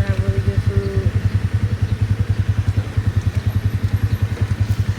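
Car running, a steady low rumble that pulses rapidly and evenly.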